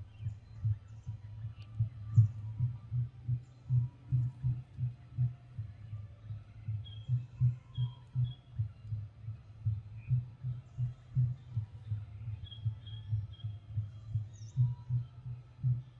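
Macaque chewing mango: low, rhythmic munching thumps about three a second, with a few faint bird chirps.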